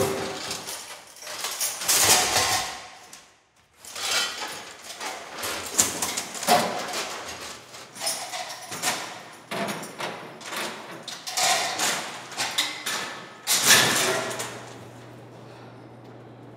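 Heavy rusty scrap-iron pieces and chains being hauled and dragged off the walls, clanking and scraping in repeated irregular bursts. Near the end the clatter stops, leaving a low steady hum.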